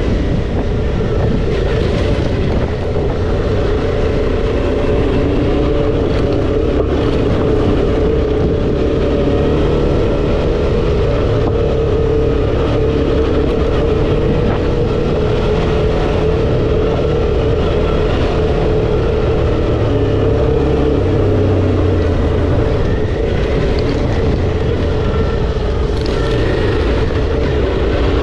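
Suzuki V-Strom 650 XT's V-twin engine running steadily at an even pitch while riding on a dirt track, over a constant low rumble.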